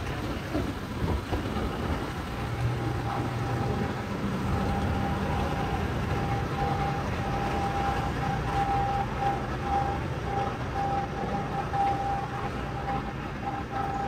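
Engine rumble of vehicles as they board a ferry. A steady high whine joins about two seconds in and later pulses on and off.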